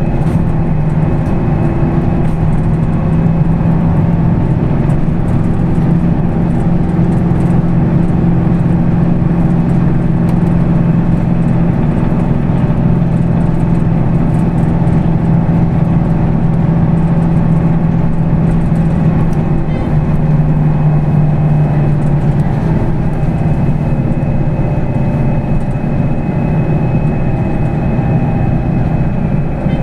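Weichai WP6NG210E50 natural-gas six-cylinder engine of a Higer KLQ6935GC5 city bus, running steadily. Its pitch rises a little about two-thirds of the way through and falls back a couple of seconds later.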